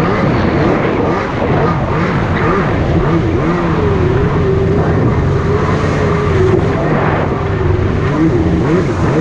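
Jet ski engine running steadily under way, its note wavering slightly up and down, over a steady rushing noise.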